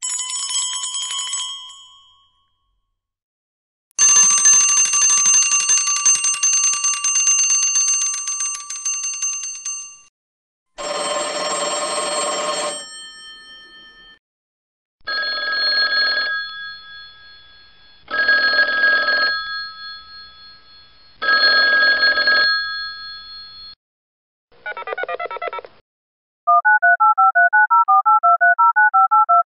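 Vintage rotary telephone bells ringing in a series of separate rings: a short ring, a long ring of about six seconds, a two-second ring, three rings about three seconds apart, and a short burst. Near the end a fast run of electronic beeps alternating between two pitches, a telephone redial tone, takes over.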